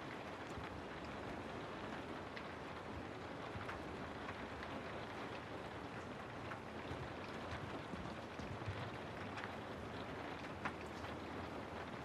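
Steady rain falling through forest trees: an even hiss with scattered individual drops ticking on leaves and surfaces, one sharper drop about ten and a half seconds in.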